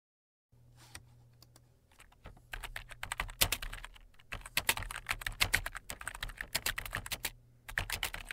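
Typing on a computer keyboard: a fast run of key clicks, a few scattered at first and then steady from about two seconds in, over a faint low electrical hum.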